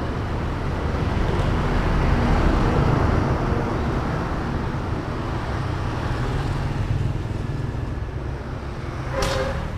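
Road traffic passing close by: a steady rush of cars and motorbikes with a heavier vehicle among them. It swells as a vehicle goes by about two to three seconds in.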